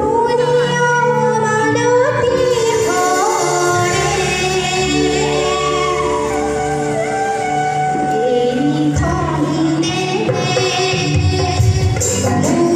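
A woman singing a song live into a microphone, backed by a small band of acoustic and electric guitars, keyboard and a hand drum.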